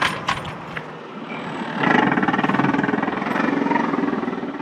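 A few sharp clicks, then about two seconds in the boat's Yamaha outboard motor is throttled up and runs loudly for a couple of seconds before easing off near the end. The throttle is opened to drag the boat's anchor free where it is jammed under a rock.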